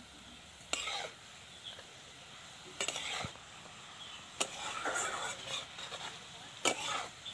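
A flat metal spatula scraping and knocking against a metal kadhai as sliced onions are stirred while frying in oil: about four sharp knocks with scrapes, over a faint steady sizzle.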